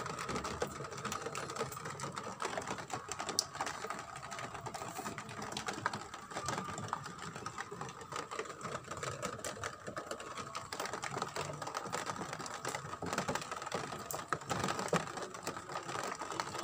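Rapid, irregular clicking and rattling over a steady high hum, like a small motorised mechanism running.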